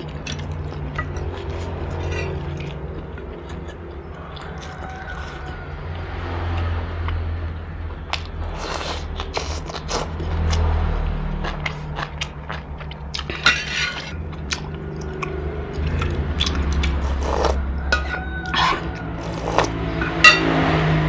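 Close-up eating sounds of noodle soup: chewing, with scattered short clicks of a metal spoon and chopsticks against a ceramic bowl, over a steady low hum. The clicks grow busier in the second half, with the sharpest ones near the middle and near the end.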